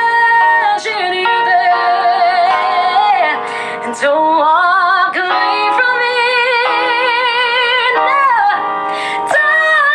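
A woman singing a power ballad solo, holding long notes with wide vibrato, while accompanying herself on an electronic keyboard.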